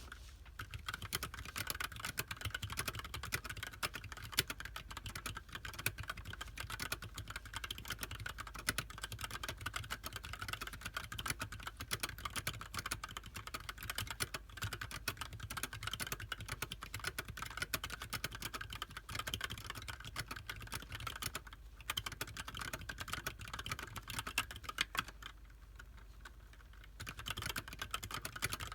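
Fast, continuous typing on a TADA68 mechanical keyboard with Gateron Yellow linear switches and JTK white-on-black keycaps, a rapid stream of key clacks. The typing pauses for about two seconds near the end, then resumes.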